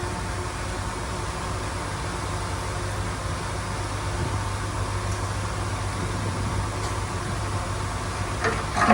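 A diesel engine of the earthmoving equipment runs steadily with a low hum. Just before the end a louder, higher-pitched sound with several tones comes in.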